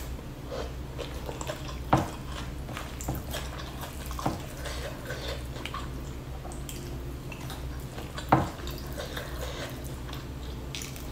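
Close-miked eating sounds: a person chewing and making small wet mouth clicks while fingers pick at fried milkfish and rice, with two louder short sounds about two seconds in and near eight seconds. A low steady hum runs underneath.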